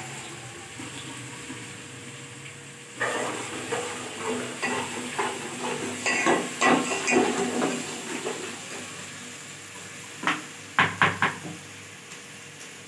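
Lentil dumplings frying in oil in a pan, with a faint sizzle and a run of scraping and tapping from a utensil against the pan for several seconds. Near the end come a few sharp metal clinks.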